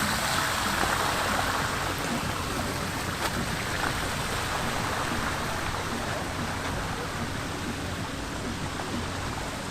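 Steady rushing water, louder in the first few seconds, with a low steady hum underneath.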